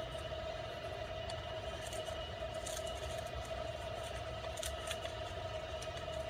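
A parrot chewing and tearing cardboard, with scattered sharp crunching clicks over a steady background hum.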